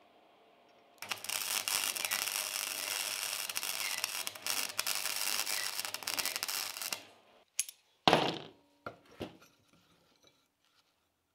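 Handheld power grinder grinding a small steel seat bracket for about six seconds, a dense scraping rasp that trails off as the tool comes off the metal. Then a few sharp knocks, one loud, as the steel bracket is handled on the wooden bench block.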